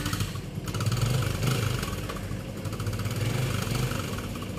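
Small underbone motorcycle engine idling, swelling slightly about a second in and again near three seconds.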